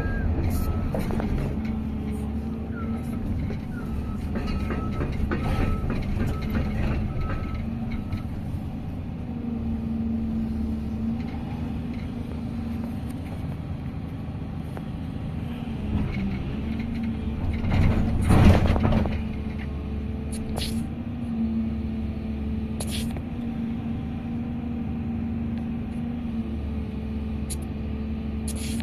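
Engine of an old heavy machine running steadily, heard from inside its cab, with a loud clatter about eighteen seconds in.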